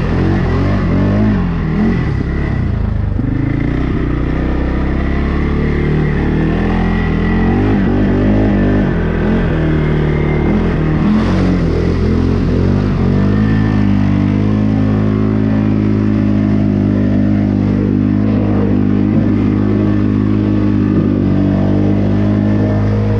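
ATV engine revving hard through a deep mud hole, its pitch swinging up and down, then held at steady high revs for the last nine seconds or so as the quad bogs down in the mud with its wheels spinning.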